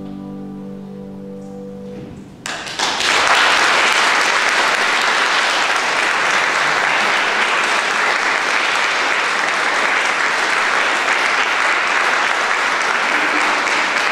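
A grand piano's closing chord sustains and fades for about two seconds, then an audience breaks into loud, steady applause that carries on.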